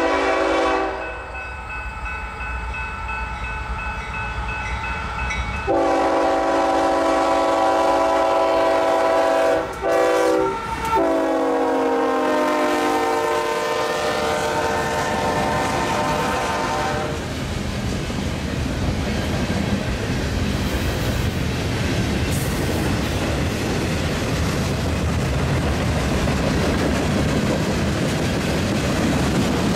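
Union Pacific freight locomotive's air horn: a blast that ends about a second in, then a long blast broken briefly near the middle, its pitch dropping as the locomotive passes. Then a loaded freight train's cars roll past steadily on the rails.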